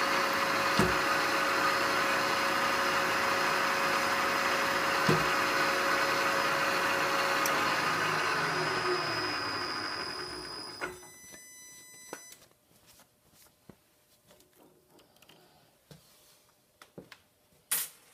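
Milling machine spindle running as it drills a 7/64 inch hole in a steel tool blank, with two small clicks. About eight seconds in the motor is switched off and the spindle winds down with a falling tone, stopping about three seconds later. Then only faint clicks, with one sharp click near the end.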